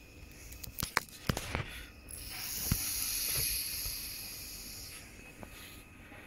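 An aerosol can of DPF cleaner spraying through a thin extension tube into a sensor port ahead of the diesel particulate filter: a hiss of about three seconds that swells and then fades. A few sharp clicks and knocks come just before it.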